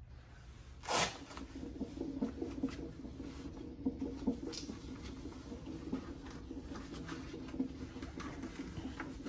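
Soft rustling and scattered small clicks of hands handling IV supplies, with one louder rustle about a second in.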